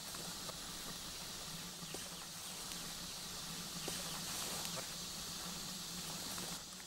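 Outdoor ambience: a steady high hiss with a few faint short chirps scattered through it, over a low steady hum.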